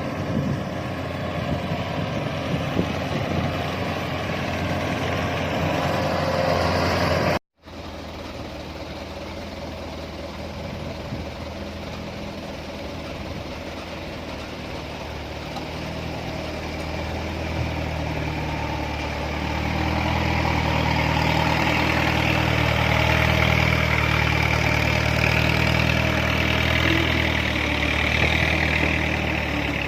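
Kubota DC-105X combine harvester's diesel engine running steadily. The sound drops out completely for an instant about a quarter of the way in, comes back quieter, then grows louder again past the halfway mark.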